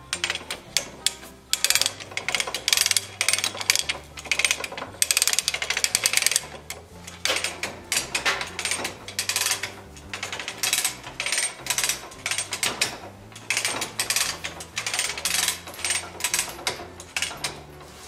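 Hand-cranked hard rubber tire machine ratcheting: its crank and pawl click rapidly as the handle is worked in strokes to pull a rubber tire onto a carriage wheel. The clicking comes in bursts of a few seconds with brief pauses between them.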